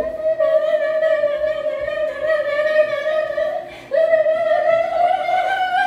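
A voice singing two long held notes with no instruments behind it; the second, about four seconds in, starts a little higher and rises slightly.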